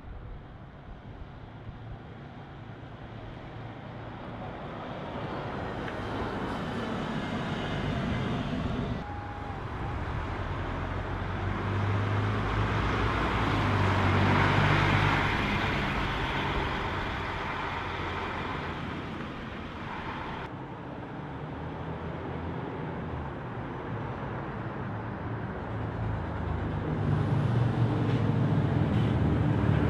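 Buses driving by one after another on a road, with diesel-type engine running and tyre noise. A MAN city bus approaches first. A tandem-axle coach then passes close by, the loudest part, in the middle. A Volvo coach approaches at the end, the sound growing louder. The sound changes abruptly twice between the passes.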